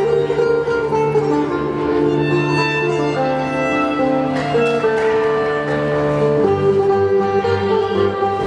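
Instrumental music: sustained melody notes over a held bass note, and the bass moves lower about six and a half seconds in.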